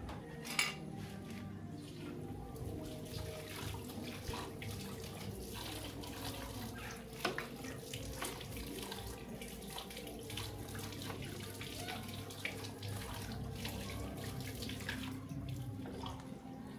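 Water running and splashing, with frequent small clicks and knocks of plastic cups and dishes being handled, and a sharper knock about half a second in. A steady low hum runs underneath.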